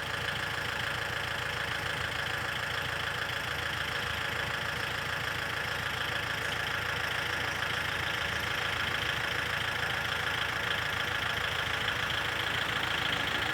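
Diesel engine of an excavator running steadily, with a fast, even clatter.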